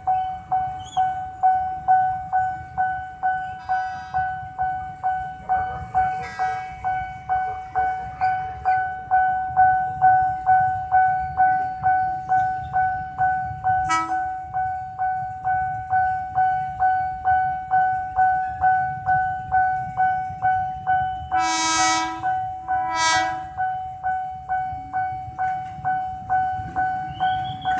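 Railway level-crossing warning bell ringing steadily at about two strokes a second. An approaching train's horn sounds two blasts about three quarters of the way through.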